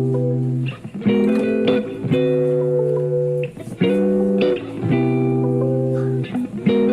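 Background music: a guitar playing sustained chords that change every second or so.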